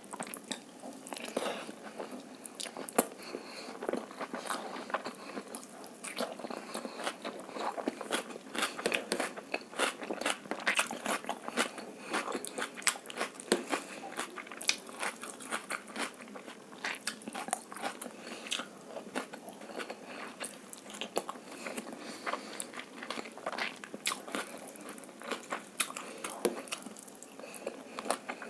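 Close-miked eating: egg fried rice and chilli chicken being chewed with many small, irregular wet clicks and crunches.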